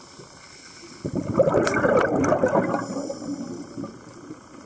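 A scuba diver's exhaled air bubbling out of the regulator, heard underwater: a gurgling rush of bubbles starting about a second in and fading out over two to three seconds.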